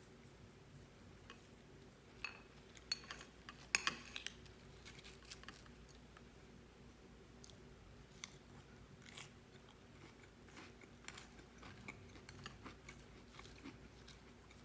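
Close-up chewing and crunching of a salad with croutons and seeds: scattered crisp crunches, the loudest a cluster about four seconds in, with quieter chewing after.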